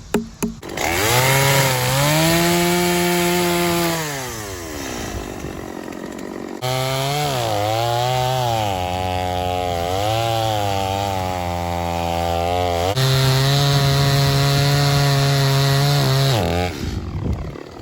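Gas chainsaw revving up from idle and cutting wood, its engine pitch sagging under load and recovering. It eases off about four seconds in, throttles up again for another cut, revs higher about two-thirds through, then drops back to a low idle near the end.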